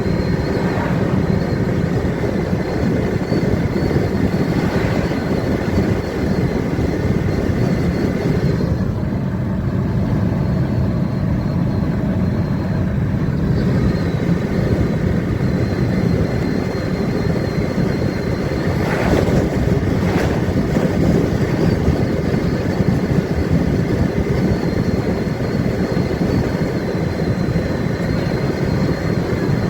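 Lada Vesta side mirror whistling in the airflow at speed: a thin, steady high whistle over loud road and wind noise, dropping out for a few seconds about a third of the way through and then coming back. The whistle comes from a gap at the upper right corner of the mirror.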